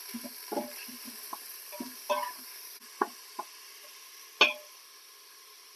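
Ground beef sizzling in hot olive oil in the stainless steel inner pot of an Instant Pot on its sauté setting, with a wooden spoon scraping and knocking against the pot several times as the meat is stirred and broken up. The loudest knock comes about four and a half seconds in, and after it only the steady sizzle remains.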